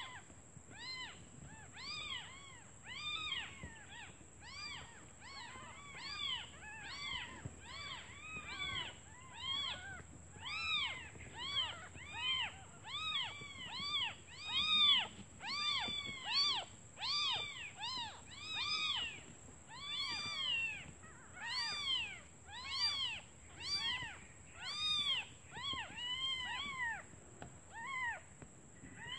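Several young kittens mewing over and over, high cries that rise and fall in pitch, coming in quick succession and sometimes overlapping: hungry kittens calling for their absent mother.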